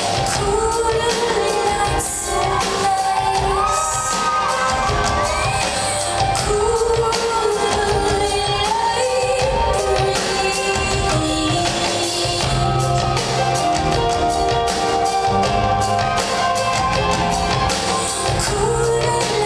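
Live concert music: a woman singing over a band with a steady drum beat.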